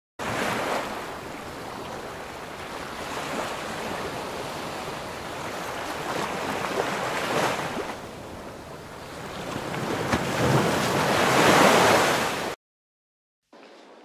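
Sea waves washing against the shore, a steady rushing that swells twice as bigger waves break, once about halfway through and again near the end, then cuts off suddenly.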